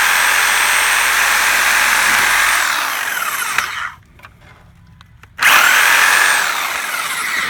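Electric reciprocating saw (Sawzall) running, cutting through the wooden dowels of a rocking chair. It runs, winds down and stops about four seconds in, then starts again for a second cut about a second and a half later.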